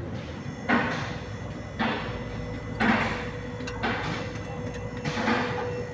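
Wrench turning a spark plug in or out, making five short rasping strokes about once a second.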